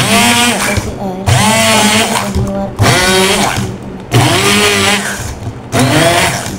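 Electric hand blender pulsed in about five short bursts in a plastic beaker, puréeing chilies, shallots and tomatoes into a spice paste; with each press the motor whines up in pitch and drops back as it is let go.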